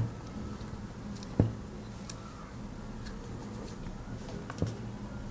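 Small clicks and taps of a Swiss Army knife and its removable pin being handled, with three sharper knocks: one at the start, one about a second and a half in, and one near the end.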